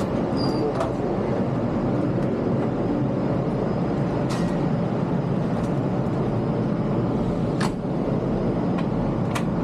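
Steady low rumble of a train, with a few brief sharp clicks scattered through it.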